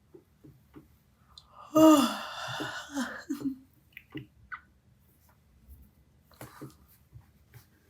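A young woman yawning about two seconds in: a loud breathy intake with a voiced groan that bends down in pitch, lasting about a second and a half. Faint small clicks and breaths follow.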